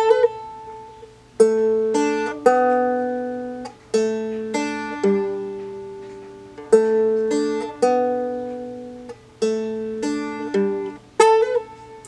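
Seagull Merlin, a four-string dulcimer-style instrument, played fingerstyle: a slow melody of single plucked notes, mostly in groups of three, each ringing out and fading before the next.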